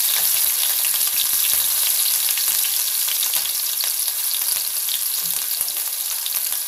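Chopped green chillies frying in hot oil with mustard and cumin seeds in a kadhai: a steady sizzle full of small crackles and pops.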